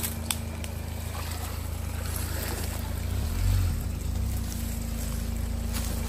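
Ford Bronco Sport SUV's engine running low and steady as it crawls over a rutted dirt trail, swelling briefly about halfway through, with a few faint clicks.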